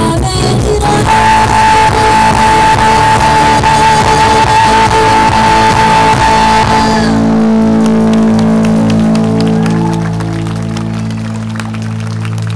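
Rock band playing, with electric guitar over drums and a long held high note. About seven seconds in the drums and high end drop away and a held low chord rings on, fading toward the end.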